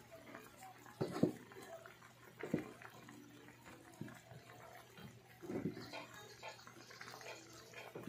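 A cooking utensil stirring noodles and sliced sponge gourd in a pan of broth, with a few knocks against the pan, the loudest about a second in.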